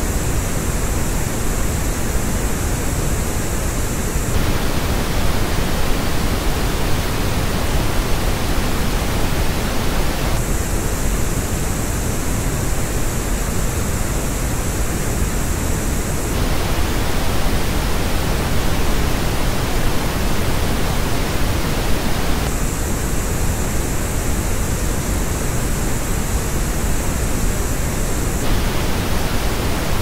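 Pink noise test signal alternating about every six seconds between the flat reference noise and the same noise reproduced through Dyson Zone headphones. The headphone version has a hollow dip in the upper midrange and a bright, hissy peak above it. The headphone version plays at the start, again about ten seconds in, and again about twenty-two seconds in, with the flat original between.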